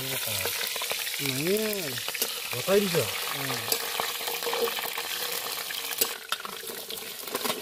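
Hot oil sizzling steadily in a large steel wok as spices fry, with a metal spatula stirring and clinking against the pan. A voice sounds briefly twice in the first few seconds.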